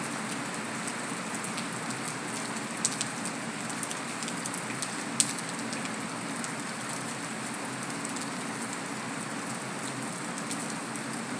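Heavy rain falling steadily on concrete, an even hiss with a few sharp drop splats, the clearest about three and five seconds in.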